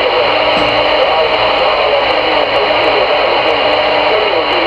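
CRE 8900 CB radio receiving on channel 22, its speaker giving loud steady static with faint wavering tones drifting underneath.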